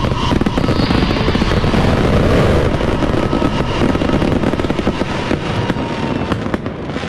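Fireworks display firing a dense barrage of crackling bursts and bangs, easing off about six seconds in to a few separate sharp cracks.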